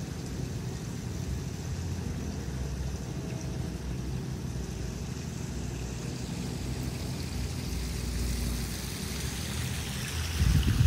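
Steady low outdoor rumble, with the splashing of a small backyard pond waterfall growing louder over the last few seconds and a louder low buffeting near the end.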